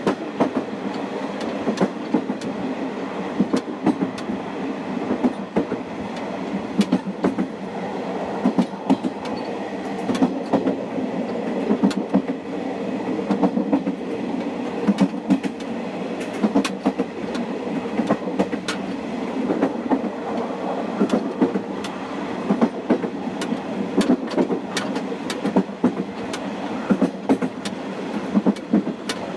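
KiHa 47 diesel railcar under way, heard from the gangway between cars: the diesel engine runs steadily under the rolling noise, and the wheels click over rail joints many times at short, uneven intervals.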